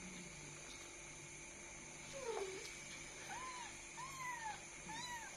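Kittens mewing: one lower, drawn-out mew just after two seconds in, then four short high-pitched mews about a second apart, each rising then falling in pitch.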